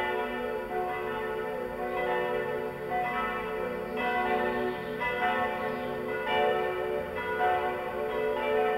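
Church bells of a concrete bell tower ringing a full peal. Several bells strike in turn and overlap, with a fresh strike about once a second over a steady wash of ringing tones.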